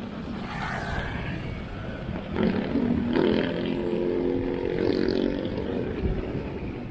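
Motorcycle engine running while riding down a street, under steady wind and road noise. An engine note comes up about two seconds in and holds for about three seconds.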